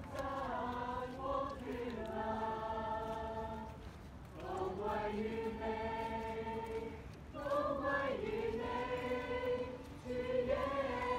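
Crowd of church-group singers singing a slow hymn about Jesus together, with long held notes in phrases of a few seconds and short breaks between them.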